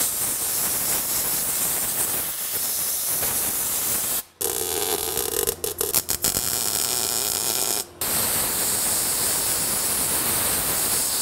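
MIG welder laying plug welds in steel body panels: a loud, steady hiss that stops briefly about four seconds in and again near eight seconds, then starts again.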